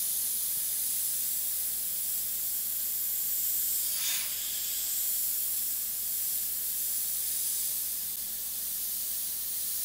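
Iwata HP-CS Eclipse gravity-feed airbrush hissing steadily as it sprays paint, briefly louder about four seconds in.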